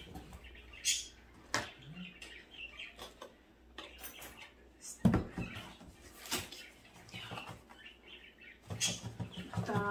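A small cardboard box handled and turned over in the hands, with cardboard rubbing and scraping and scattered light taps and knocks. The sharpest knock comes about five seconds in.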